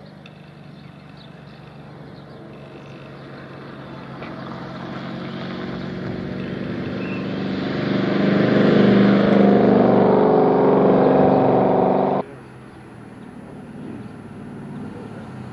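A rally car's engine under power, growing louder as the car approaches and passes close by, loudest about eight to twelve seconds in. The sound cuts off abruptly about twelve seconds in, leaving a much quieter outdoor background.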